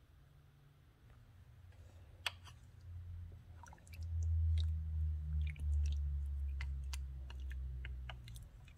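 White plastic spatula stirring braising chicken feet in a slow cooker's ceramic crock: wet squishing and scattered light clicks of the spatula against the crock, with a sharp click a couple of seconds in. A low rumble runs under it from about three seconds in.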